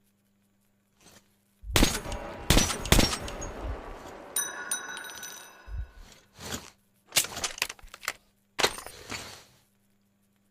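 A clapper sound-effect device imitating rifle fire: a series of sharp cracks, three close together near the start and three more spread out later. In the middle comes a short metallic ringing of several steady tones.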